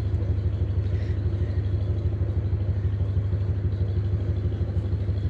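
Narrowboat's diesel engine running steadily at low revs, a deep, evenly pulsing throb.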